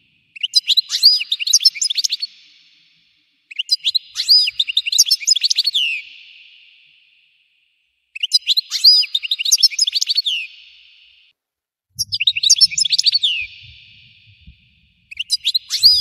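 European goldfinch singing: five phrases of rapid, twittering high notes, each two to three seconds long, with short silences between.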